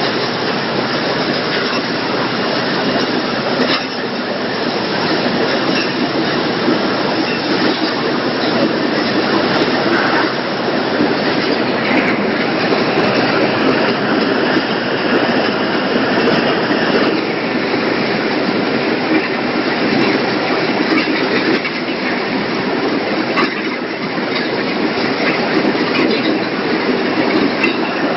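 Automatic poultry slaughter processing line running: a loud, steady, dense mechanical noise of working machinery.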